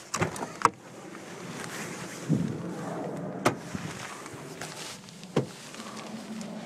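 A few sharp clicks and one duller thump a little after two seconds: handling noises inside a pickup truck's cab.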